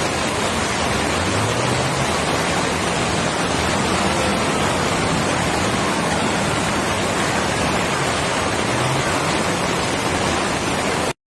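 Floodwater rushing in a steady, loud, even roar, cut off abruptly near the end.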